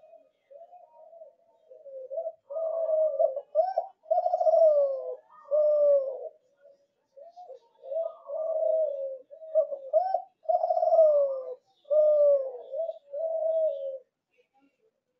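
Kelantan derkuku dove cooing in a long run of short, rolling phrases, each sliding down in pitch. The song stops about a second before the end.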